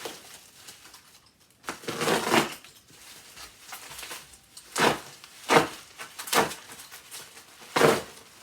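Plastic packing, bubble wrap and tape, being pulled, crinkled and torn off a parcel by hand: one longer rustle about two seconds in, then four short sharp rips or crinkles.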